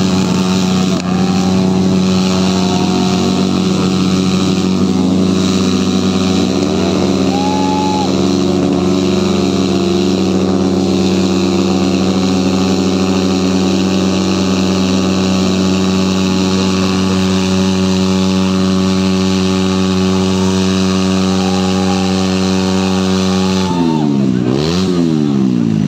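Motorcycle engine held at high, steady revs while the bike spins burnout circles on the asphalt. Near the end the revs drop and climb sharply twice.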